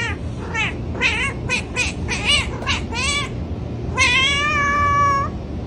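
A cat meowing: a quick run of about ten short meows, each rising and falling in pitch, over the first three seconds, then one long, level meow about four seconds in.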